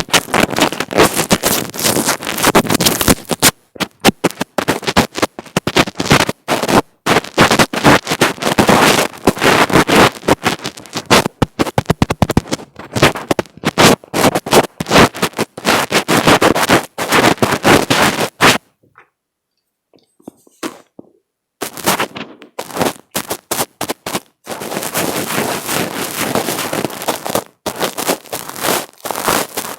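Fingers rubbing and tapping directly on an earphone microphone, giving loud, rapid crackling and scratching. It stops for about three seconds around two-thirds of the way through, then starts again.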